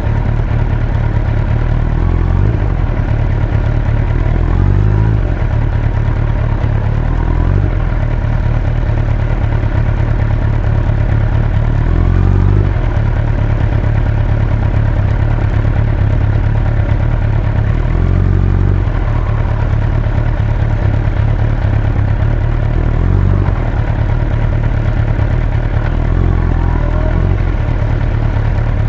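Suzuki Hayabusa GSX-1300R's inline-four engine running steadily under way, with rushing wind; its note shifts up and down every few seconds.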